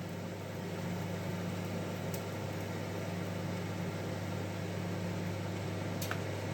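Convection microwave oven running preheated at 200 °C, a steady low electrical hum. A faint click about two seconds in and another near the end.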